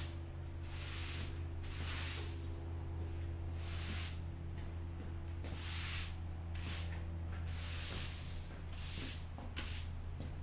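Push broom sweeping grit and rust flakes across a concrete floor: a series of swishing strokes, about eight of them, a second or so apart, over a steady low hum.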